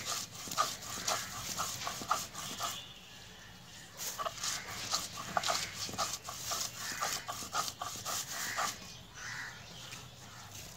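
Stone roller rasping back and forth across a flat grinding stone (shil-pata), grinding ginger, garlic and cumin into paste in quick repeated strokes, with a short pause about three seconds in and softer strokes near the end.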